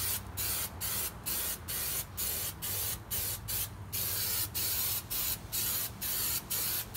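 Aerosol can of 3M spray adhesive hissing in short, even bursts, about three a second, as contact glue is sprayed onto both surfaces to be bonded.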